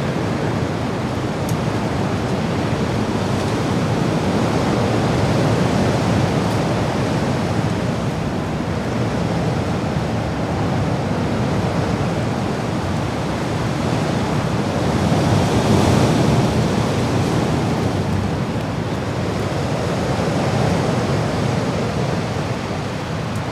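Wind sound effect: a steady, dense rush of noise that swells and eases gently a few times, strongest about two-thirds of the way through.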